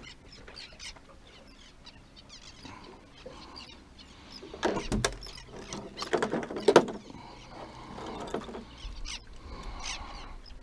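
Clicks and knocks of fishing tackle being handled while a lure is changed, in two short clusters about halfway through and again about a second and a half later.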